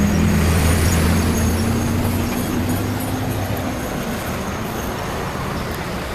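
A heavy road vehicle's engine running over traffic noise, its low hum loudest at first and fading about four seconds in.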